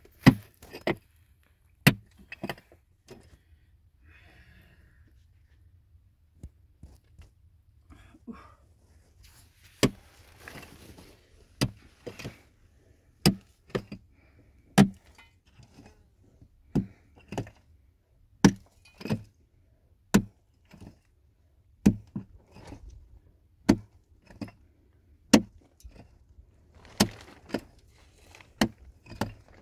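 A hand tool struck again and again in hard, sharp blows, roughly one a second and sometimes two in quick succession, with a short stretch of scraping about a third of the way in.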